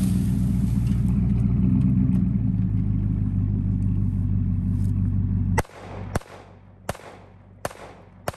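Chevrolet Silverado pickup's engine running steadily, then stopping suddenly about five and a half seconds in. Four sharp clicks follow, about two-thirds of a second apart.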